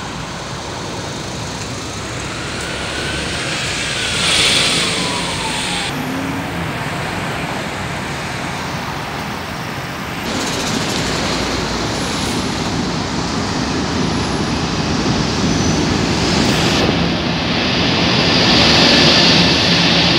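Steady city road-traffic noise: a continuous din of passing cars and vans.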